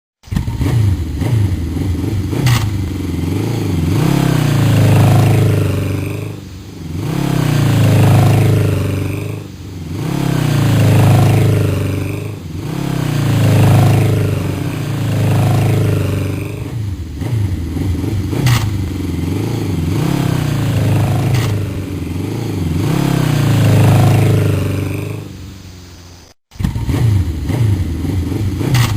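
Motocross motorcycle engine revving up and falling back over and over, a swell about every three seconds. It cuts out briefly near the end and then starts again.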